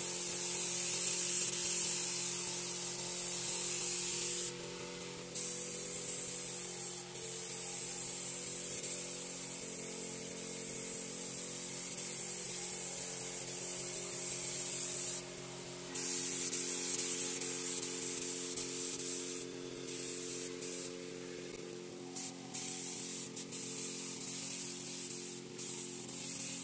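Air spray gun hissing as it sprays finish, the hiss cutting out briefly each time the trigger is let go: twice for about a second, then in several short breaks near the end. A steady low hum runs underneath.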